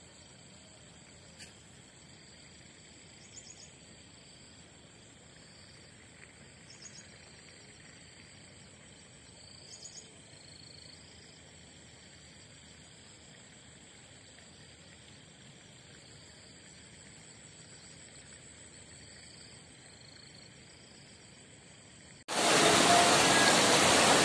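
Faint field ambience: a steady high insect drone with a few short high chirps every few seconds. About two seconds before the end, a loud rush of floodwater pouring across a road cuts in suddenly.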